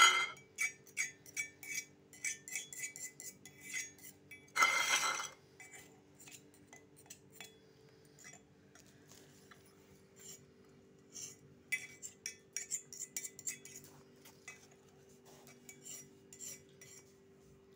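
A steel knife scraping and tapping crushed garlic out of a steel mug into a steel bowl: quick clusters of metal clinks and scrapes, with one longer, louder scrape about four and a half seconds in, over a faint steady hum.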